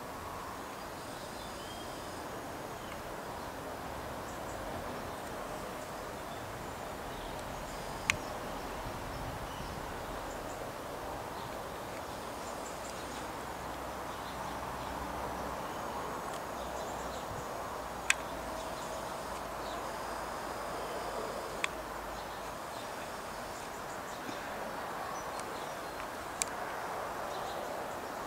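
Steady outdoor background noise, with faint high chirps now and then and four sharp clicks spread through it.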